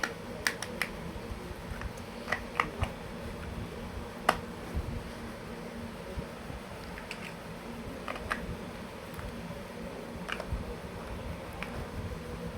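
Plastic building blocks clicking as they are handled and snapped together: scattered sharp clicks, some in quick pairs and threes, over a steady low background hum.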